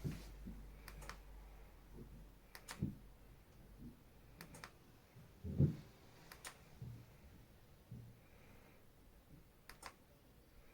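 Faint scattered clicks, several in close pairs, with a couple of soft low thumps in between.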